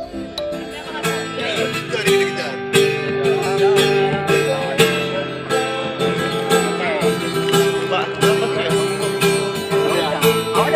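A song with strummed acoustic guitar chords and a singing voice carrying the melody.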